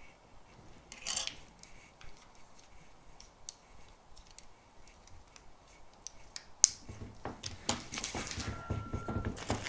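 Parts of a Xiaomi Soundwave transforming robot toy clicking and snapping as it is handled and pulled apart: scattered small clicks that become busier near the end.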